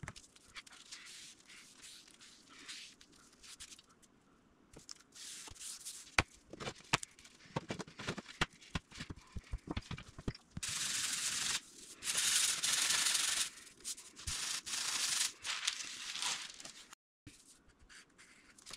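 Hands working balsa sheeting on a workbench: a quick run of light knocks and clacks as small weights are set down on the glued sheets, then several seconds of rasping, scrubbing rubbing over the wood.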